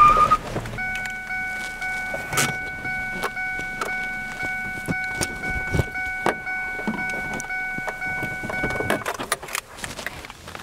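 Car keys jangling and clicking at the ignition as the key is tried again and again, with a steady high tone running under them that stops about a second before the end. The stalled car does not start.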